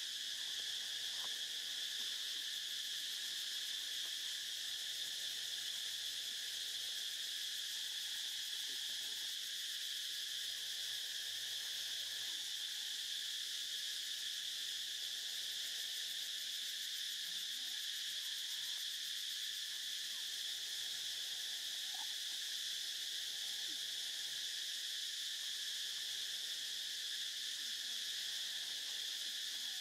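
A steady, high-pitched insect chorus, with a few faint short calls beneath it.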